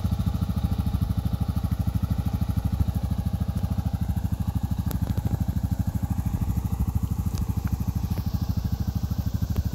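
Yamaha Grizzly 700's single-cylinder four-stroke engine idling steadily, an even, rapid pulsing of about a dozen beats a second.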